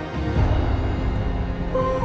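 Background soundtrack music: sustained low tones with a dark, dramatic feel, a new melody line coming in near the end.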